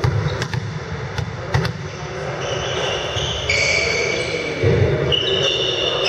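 A volleyball bounced a few times on a wooden gym floor before the serve, each bounce a sharp echoing knock in the sports hall. From about halfway through come several seconds of high, steady squealing tones that step in pitch.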